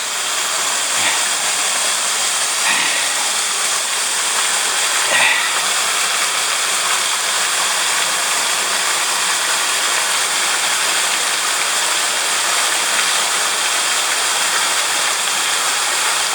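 Mountain stream rushing steadily over rocks, an even, unbroken wash of water noise, with a few brief faint sounds in the first five seconds.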